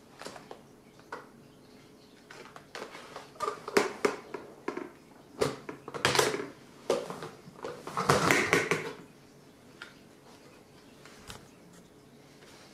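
Handling noise as a cine camera is lifted out of its foam-lined hard case and the case lid is shut and the case moved: a string of clicks, knocks and scraping. The noises are thickest and loudest from about three to nine seconds in.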